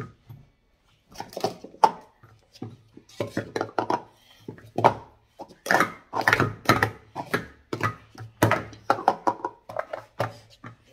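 Speed Stacks plastic sport-stacking cups clattering rapidly as a cycle sequence is stacked up and down, a fast run of clacks and taps. There is a brief pause about a second in, then the clatter keeps up without a break.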